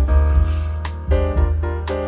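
Background instrumental music: chords struck about once a second over a deep bass.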